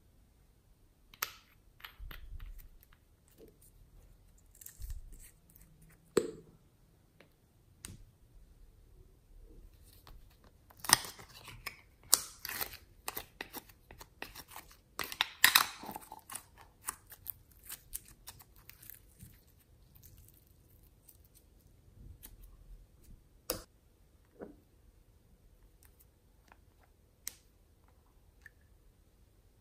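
Hands squeezing and stretching glossy glitter slime, giving sticky crackles and small pops that are densest and loudest about ten to sixteen seconds in, with scattered single clicks elsewhere.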